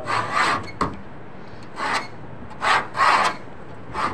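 A hand blade scraping and cutting a small piece of leather on a workbench: about four short rasping strokes, with a sharp click just under a second in.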